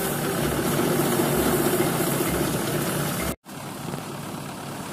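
Thresher running while threshing fenugreek: a steady mechanical din with a low thump about once a second. About three and a half seconds in the sound cuts out for an instant and comes back quieter, the machine still running.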